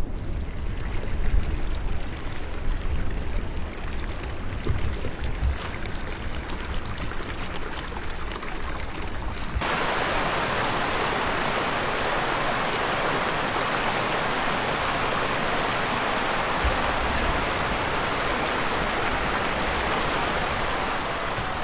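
Wind buffeting the microphone in uneven gusts over running water, then an abrupt cut about ten seconds in to the steady, even rush of a stream.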